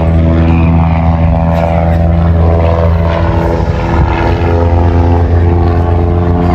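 Propeller-driven piston aircraft engines running loud and steady overhead, a deep droning hum with a strong engine note.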